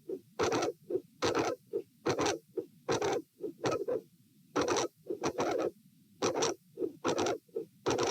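Heart sounds heard through a stethoscope over the aortic area, beats recurring in a steady pattern. They include a very loud mid-to-late systolic sound, an aortic vascular click, and a murmur with the second heart sound, which the uploader attributes to a dilated aortic root.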